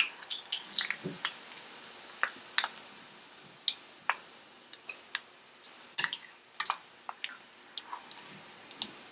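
Hot oil sizzling with irregular crackles and pops as gram-flour-coated peanuts deep-fry, while a perforated steel skimmer stirs them and lifts a batch out of the oil.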